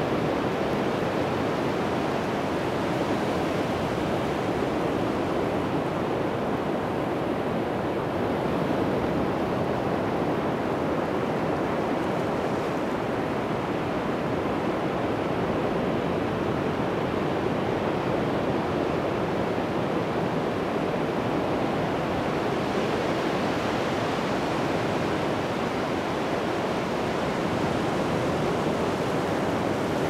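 Atlantic Ocean surf breaking on a beach: a steady, continuous rush of waves that swells a little in the hiss about twelve and twenty-three seconds in.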